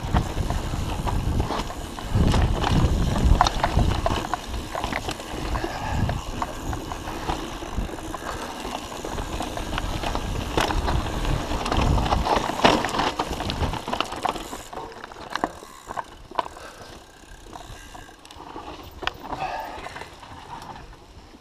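Mountain bike riding fast down dry dirt singletrack, recorded on the bike-mounted action camera: tyres rolling over dirt with sharp knocks and rattles as the bike hits bumps, over a low rumble. The rumble and knocking drop away about two-thirds of the way in, leaving scattered clicks.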